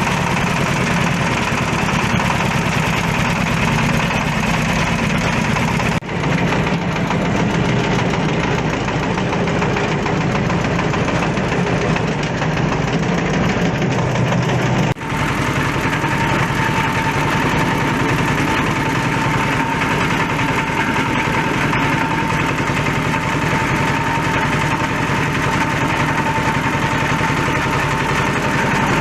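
Waste-fabric shredding machine running steadily, with a continuous mechanical drone and a thin steady whine. The sound changes abruptly twice, about six and fifteen seconds in, the whine growing more prominent after the second change.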